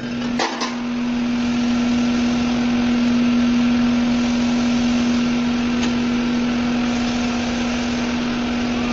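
CNC plasma cutter running on steel, a steady hiss over a constant hum, with a couple of clicks about half a second in.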